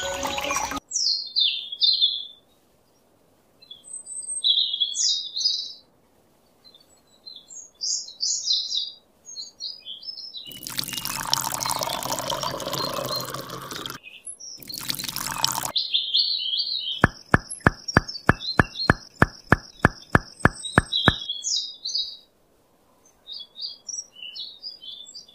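Birds chirping, interrupted by water poured from a small metal cup onto sand for about three seconds, with a short second pour just after. Later comes a run of evenly spaced sharp clicks, about three a second, lasting some four seconds.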